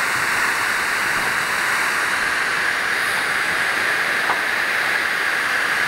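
Steady, loud rushing hiss of a fire hose's water jet spraying.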